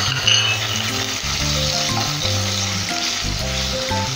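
Paneer cubes frying in hot ghee in a nonstick pan, a steady sizzle, while a wooden spatula stirs them. A brief clink about a third of a second in.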